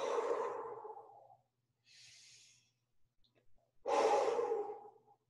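A woman taking slow, deliberate deep breaths: a long breath blown out through pursed lips, a quieter breath drawn in, then a second long exhale about four seconds in.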